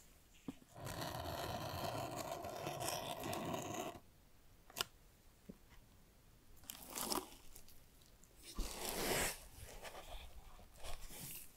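Clear packing tape on a cardboard shipping box being cut and torn open in one continuous stretch of about three seconds. A couple of light taps follow, then two short rustling scrapes as the cardboard flaps are folded back.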